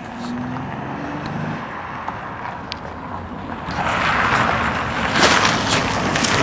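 Van engine running, with a loud rushing noise that swells in about four seconds in and a few sharp knocks after it.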